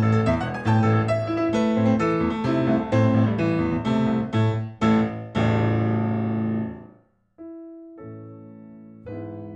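Solo piano playing a fast run of loud, hammered chords over a low bass, from an improvised scherzo. A final chord rings and fades away about seven seconds in. After a brief pause, a quiet, softer passage of held notes begins.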